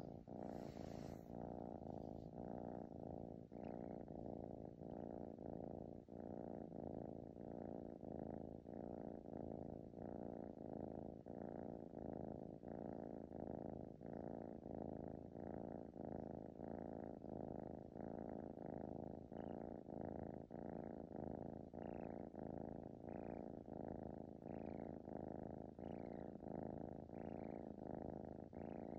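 Domestic kitten purring, a steady low purr that pulses in an even rhythm.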